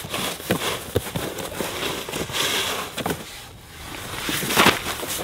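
Packaging being handled and rummaged through: irregular crinkling and rustling with sharp clicks and knocks, dipping briefly about three and a half seconds in.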